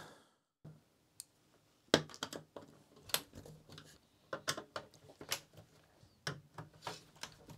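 Irregular small clicks and taps of a screwdriver working screws out of a CD player's plastic loading mechanism, with light knocks from handling the parts.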